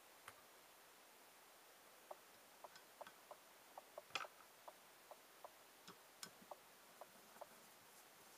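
Faint, irregular small clicks of a small metal screw and plastic insulating washer being set by hand into a power MOSFET's mounting hole on an aluminium heatsink. The clicks start about two seconds in, with one louder click about four seconds in.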